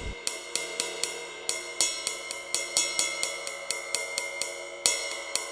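Ride cymbal sound of a Roland TD-12 electronic drum kit, triggered from its ride pad about four times a second with an even beat. The cymbal keeps ringing between strokes while the pad is being checked for correct triggering.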